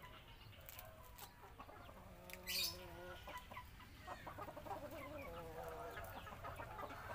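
Chickens clucking, with a short loud hiss about two and a half seconds in.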